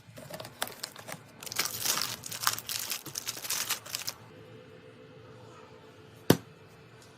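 Plastic packaging crinkling and tearing for a few seconds, with scattered light clicks before it. Near the end there is a single sharp knock.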